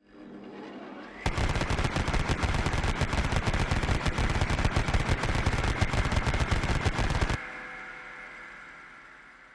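Machine gun firing one long sustained burst of very rapid automatic fire for about six seconds, after a quieter lead-in of about a second. The fire cuts off suddenly and leaves a ringing tail that fades away.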